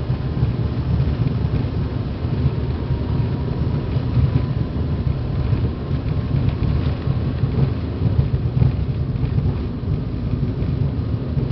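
Airliner jet engines at takeoff power, heard from inside the passenger cabin during the takeoff roll: a loud, steady, deep rumble with a faint steady whine over it in the first few seconds.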